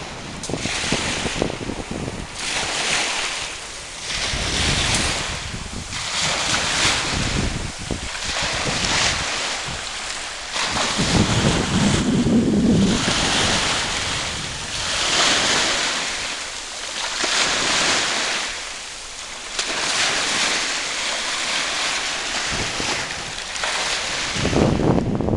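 Small waves of the James River washing in over driftwood and tree roots at the shoreline, each wash swelling and fading every second or two, the heaviest about halfway through. Wind buffets the microphone.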